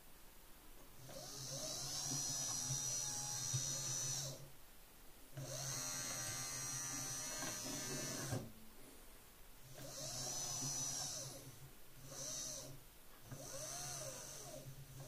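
Renault Clio power window regulator motor and gearbox running in a series of runs with short pauses, driven by an Arduino Uno PWM H-bridge controller. Each run rises in pitch as it starts and falls as it stops; the later runs are shorter.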